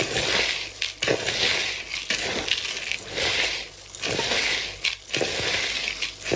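About a kilogram of dry pigeon feed (grain and seed mix) being mixed with a powdered supplement: a grainy rattling swish that repeats about once a second as the feed is turned over.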